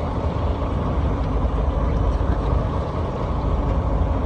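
Steady low rumble aboard a small fishing boat at sea, with wind buffeting the microphone.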